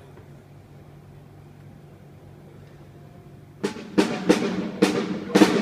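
A low steady hum, then from about three and a half seconds in, a drum struck five times at uneven spacing, each hit ringing out in a large hall: drums being checked one hit at a time during a band's sound check.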